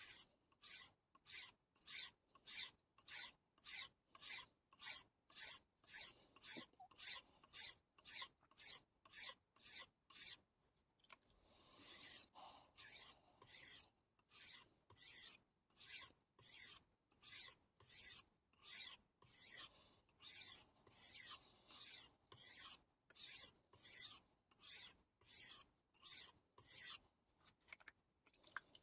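Kiritsuke knife blade being stroked back and forth on a 1000-grit Taidea whetstone, a rhythmic rasp at about two strokes a second. About ten seconds in the strokes pause briefly, then there is a longer stroke before the even rhythm resumes.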